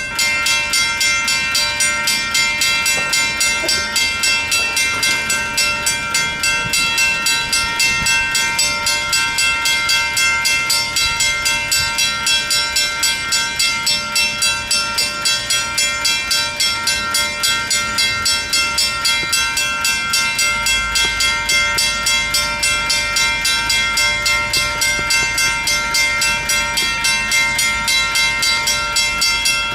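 Railroad crossing bells, a WCH mechanical bell and a WCH electronic bell, start ringing abruptly as the crossing activates and keep striking rapidly and steadily together. A low rumble joins about twenty seconds in.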